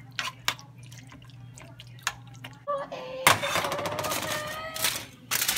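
A spoon stirring pasta in a metal skillet, with a few light clicks against the pan. About three seconds in, aluminium foil crinkles loudly for a second or two as it is opened up over a baking dish.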